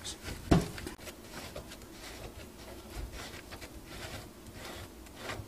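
Plastic threaded coupling of a corrugated sink overflow hose being twisted loose by a gloved hand: faint rubbing and small clicks, with one sharper knock about half a second in.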